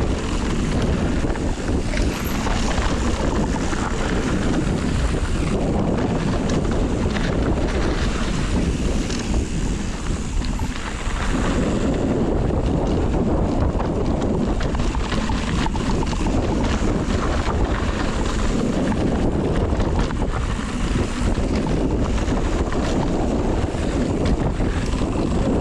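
Wind rumbling across the microphone of a camera riding on a mountain bike descending a rough downhill trail, with scattered clicks and rattles of the bike over the rocky ground.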